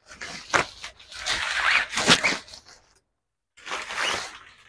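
Rustling and scraping of a fishing rod's cover being handled, in three bursts with two sharp clicks along the way.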